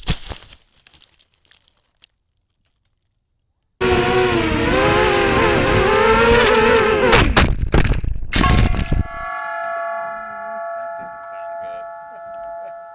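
An FPV quadcopter's motors whine loudly, their pitch wavering with the throttle, then several sharp crash impacts follow. After the impacts comes a steady metallic ringing of several tones that pulses slowly in level.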